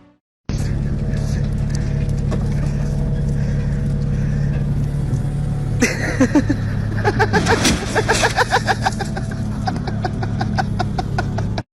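A vehicle engine running steadily, with people's voices and sharp clicks joining about six seconds in.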